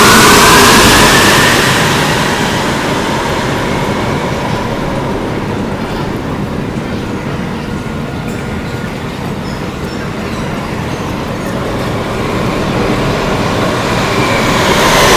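Rubber-tyred Montreal Metro train pulling out of the station: its motor whine rises in pitch and the noise fades over the first couple of seconds. A steady station rumble follows. Near the end the next train comes in, growing loud, its whine falling in pitch as it slows.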